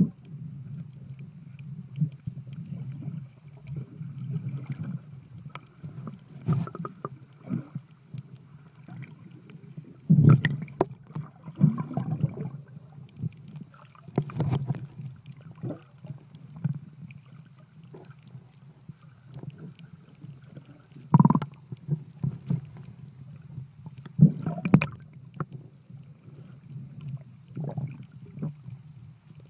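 Muffled underwater sound through a submerged camera: a steady low rumble of water moving against the housing, broken by irregular knocks and gurgling splashes.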